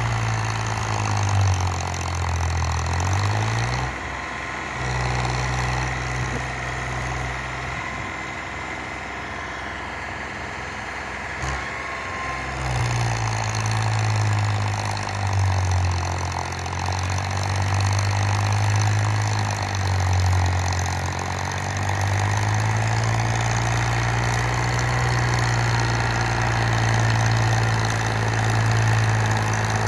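Farmtrac Champion 42 tractor's diesel engine running under load while driving a nine-foot rotavator through the soil. It is a steady low drone whose pitch wavers slightly. It drops back for several seconds after about four seconds in, then comes back strong.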